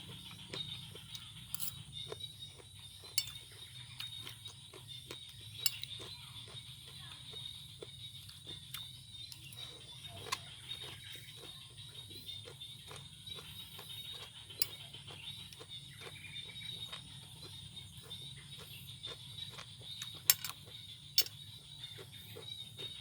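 Close-up chewing of crunchy raw vegetable salad: irregular wet crunches and mouth clicks, with two sharper clicks near the end, over a steady high-pitched buzz and low hum.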